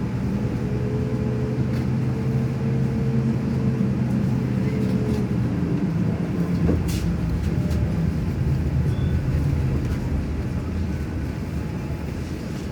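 A vehicle running with a steady low rumble, and a faint whine in the first few seconds.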